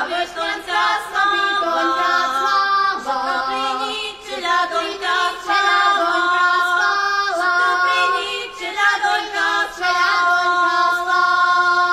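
Background music: a Slovak folk song sung by female voices, with long held notes in several parts.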